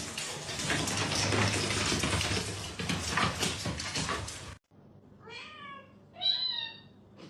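Loud scratchy noise with scattered clicks that cuts off suddenly, followed by a domestic cat meowing twice, each meow short and falling in pitch.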